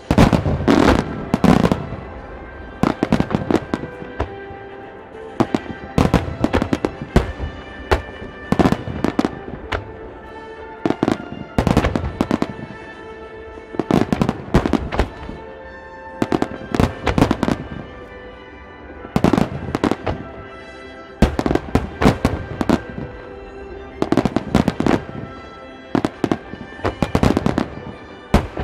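Aerial firework shells bursting in volleys of sharp bangs every two to three seconds, with music playing throughout.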